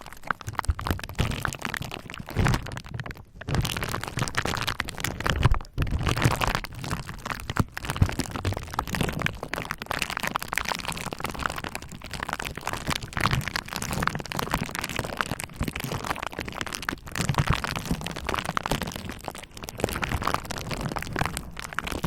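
Bubble wrap being crackled and popped under a roller: a dense, irregular run of small pops and crackles with occasional low thumps.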